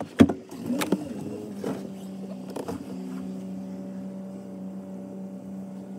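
A thump just after the start, then the Toyota Tundra's engine starts and settles into a steady, even hum, heard from inside the cab.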